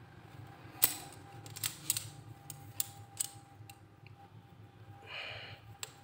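Sharp metal clicks of Japanese butterfly shears being handled, about eight separate clicks scattered irregularly, with a short rustle about five seconds in.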